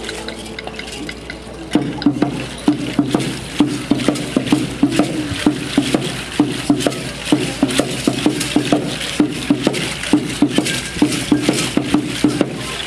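Aztec dance drumming: a large upright drum beaten in a steady, even rhythm that starts about two seconds in, with a dense rattling of shakers layered over the beat.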